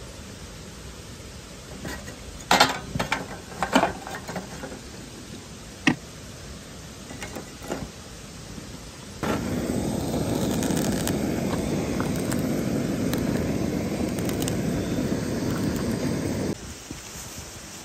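Lumps of charcoal clattering and knocking into a steel grill's firebox over the first few seconds. Then a gas torch runs with a steady rushing noise for about seven seconds, lighting the charcoal, and cuts off suddenly.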